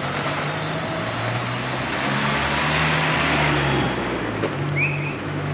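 A car driving past on the street: engine hum and tyre noise swell to a peak about three seconds in, then fade.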